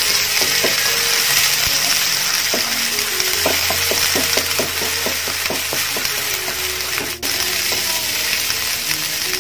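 Ginger, garlic and green chilli paste sizzling steadily in hot oil in a nonstick frying pan as it is sautéed with a wooden spatula. A run of quick light taps from the spatula on the pan comes about three to six seconds in.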